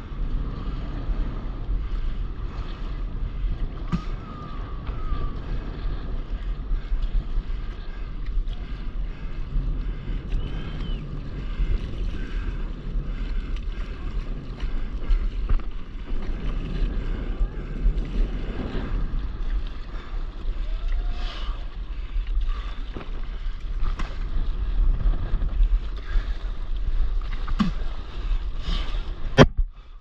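Sea water lapping and splashing around a stand-up paddleboard, with wind noise on the microphone. A sharp click comes near the end.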